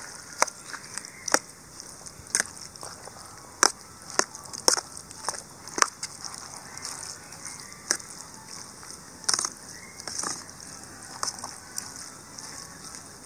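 Steel spoon clinking and scraping against a stainless steel bowl while curd rice is stirred, in irregular sharp clicks over a faint steady hiss.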